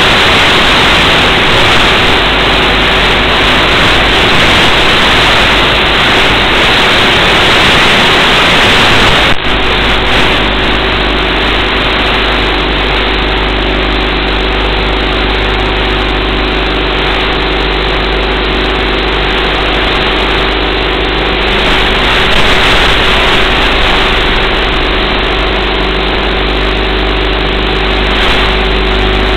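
Radio-controlled boat's motor running, heard through the onboard camera, with a loud steady hiss over the first nine seconds. About nine seconds in the hiss cuts off suddenly, leaving a steadier motor hum with a steady tone.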